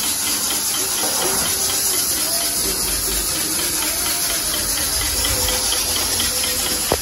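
Pressure cooker on a gas burner hissing steam steadily as it cooks the mutton. A single sharp click comes near the end.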